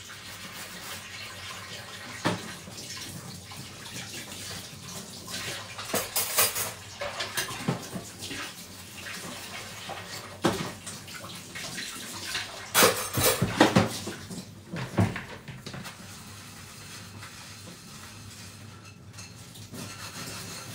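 Dishes being washed by hand in a kitchen sink: plates and cutlery clatter against each other in scattered bursts, loudest a little past the middle, over the steady run of a tap.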